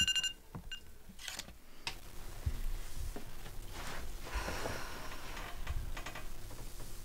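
A phone alarm's repeating beeps cut off just after the start as it is switched off. Quiet handling sounds follow: a few light clicks and soft rustling.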